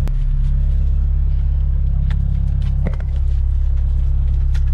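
Fishing boat's engine running steadily with a low rumble, with a few sharp knocks on deck.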